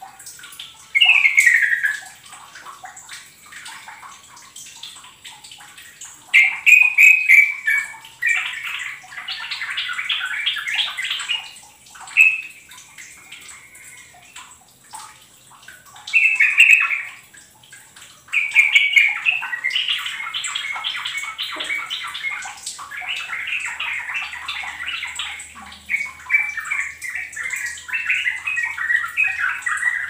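Yellow-vented bulbul (trucukan) singing: a short falling call about a second in, then bursts of rapid, bubbly chattering phrases that become almost continuous in the second half.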